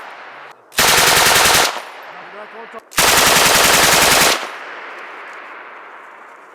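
Machine gun firing two sustained bursts, the first a bit under a second long and the second over a second, each a rapid string of shots. After the second burst the gunfire echoes and fades away over a couple of seconds.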